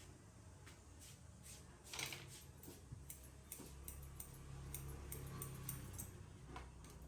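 Scissors snipping hair during a haircut, faint, irregular short snips over a low steady hum.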